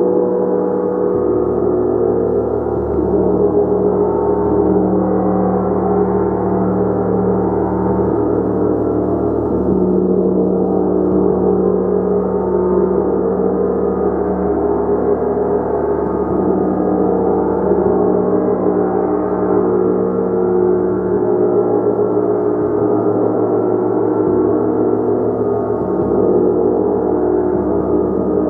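Gong being played continuously: a loud, steady wash of many overlapping sustained tones.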